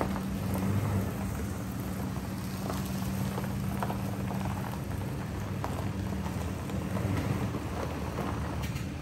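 A truck engine running at low speed, its hum fading about halfway through and coming back near the end, under a steady crackling, rain-like hiss with small ticks.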